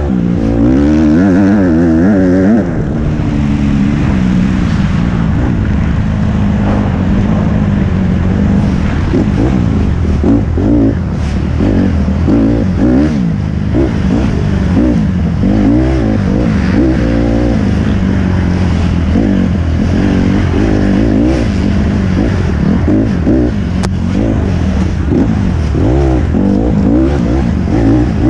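Dirt bike engine heard from on board, revving up and falling back again and again as the rider works the throttle.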